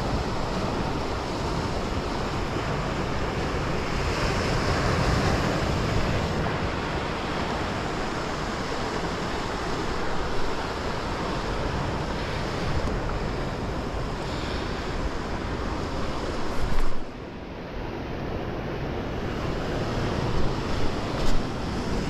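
Sea surf surging and breaking against the rocks below, mixed with wind buffeting the microphone. The wind noise drops away briefly about three-quarters of the way through.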